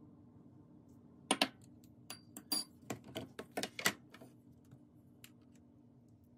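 Light clicks and clinks of tableware being set on a countertop: a glass dessert bowl with a metal spoon and a plastic food container with a clip-lock lid are put down and handled. The knocks come in a quick irregular run starting about a second in and die away after about four seconds.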